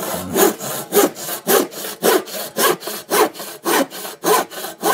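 Hand saw with a coarse jack-saw blade cutting through a wooden board, in regular back-and-forth strokes about two a second.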